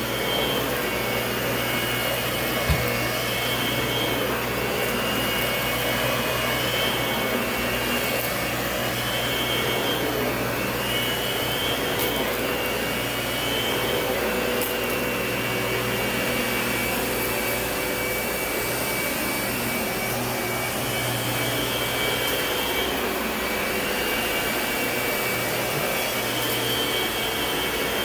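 Lindhaus vacuum cleaner running steadily, a high whine in its motor note rising and dipping every second or two. There is one sharp knock about three seconds in.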